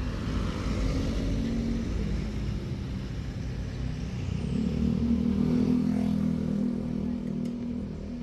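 Motor vehicle engine running with a low rumble. Its drone grows louder from about halfway through, then eases off near the end.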